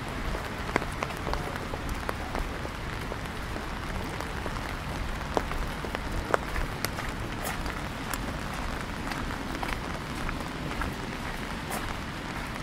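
Steady rain falling, an even hiss with individual drops ticking sharply here and there.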